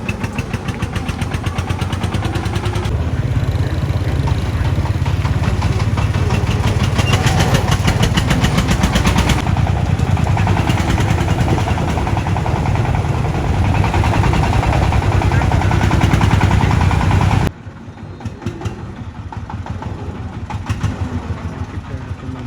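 Diesel engine running steadily with a fast, even chugging beat; the sound drops suddenly to a lower level about seventeen seconds in and carries on.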